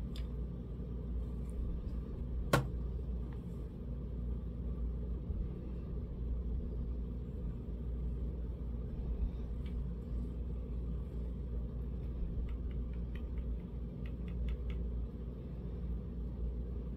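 A steady low rumble, with one sharp click about two and a half seconds in and a few faint light ticks near the end.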